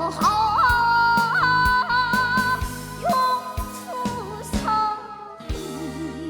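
Trot backing track from a karaoke machine: a melody instrument plays a held, sliding fill over drum beats between sung lines, and a low wavering note comes in near the end.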